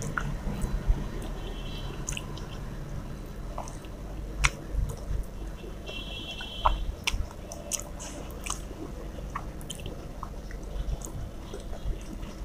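Close-miked eating sounds of a person eating fish curry and rice by hand from a steel plate: chewing and mouth smacks with many small scattered clicks, mixed with fingers picking at the food on the plate.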